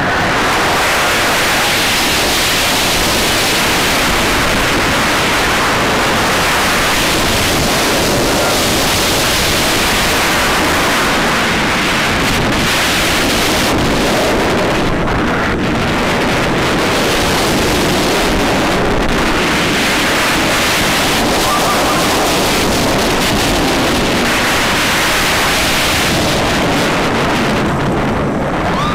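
Steady, loud wind rush over the microphone of a front-row rider on a B&M inverted roller coaster moving at speed, mixed with the train running on its track.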